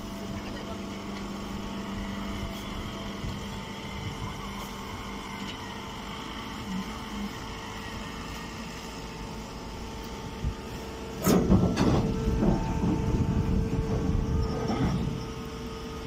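Vertical straw baler running with a steady machine hum. About eleven seconds in, a few seconds of louder, irregular rustling and knocking.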